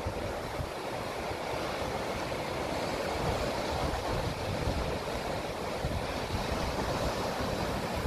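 Sea surf washing over and around shoreline rocks: a steady rushing of foaming water with an uneven low rumble underneath.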